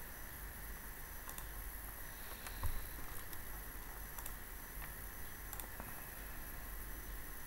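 Computer mouse clicking, a few sharp single clicks spaced irregularly, over a steady low hum and hiss; one click about two and a half seconds in is louder, with a low bump.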